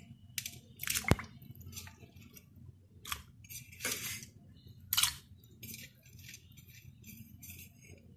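Crushed green chillies, garlic and ginger being scraped off a steel plate and dropped into thin coconut milk in a steel bowl: several short scrapes and soft splashes, with a sharp clink of metal about a second in.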